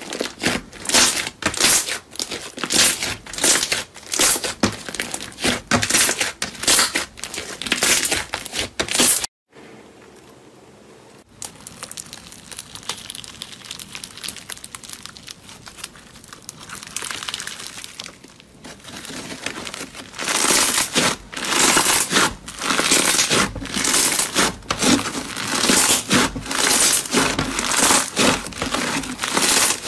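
Slime being squeezed and kneaded by hand, giving dense rapid clicks and pops. About nine seconds in it stops briefly, then comes softer sound of slime being stretched, and from about twenty seconds in loud rapid clicking and popping again as a white beaded slime is pressed and pulled.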